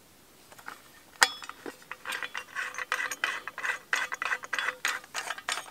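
Steel folding entrenching tool being reset by hand: one sharp metal click about a second in, then a run of small clicks and scraping as its lock is worked and the shovel head is moved to a new locking position.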